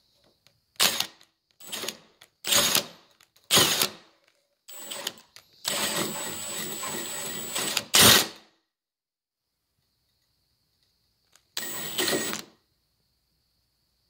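Hole saw in a power drill cutting the lock bore through a door, run in bursts: four short spurts, then a longer cut of about two and a half seconds that ends in a loud peak, and after a pause one more short burst near the end.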